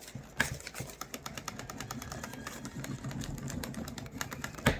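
Leather sheath edge rubbed quickly back and forth against the edge of a table to burnish it: a fast run of scraping strokes, with one sharper knock near the end.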